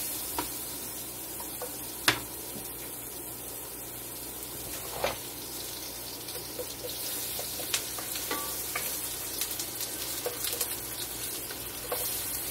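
Onion sizzling in hot olive oil in a ceramic nonstick skillet: a steady frying hiss, with a few sharp taps and clicks as pieces are added and stirred with a wooden spoon.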